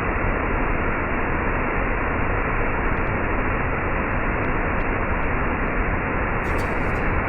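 Waterfall: water pouring steadily, a constant even rush of noise at an unchanging level.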